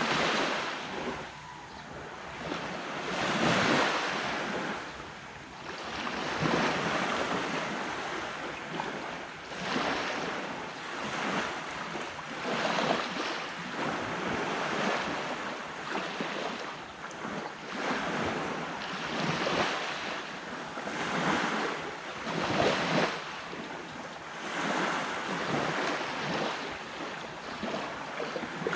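Ocean waves breaking on a beach, the surf swelling and easing every two to three seconds.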